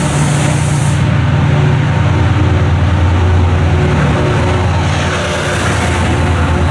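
A train's engine running steadily with a deep hum, and a hiss that swells and fades about five seconds in.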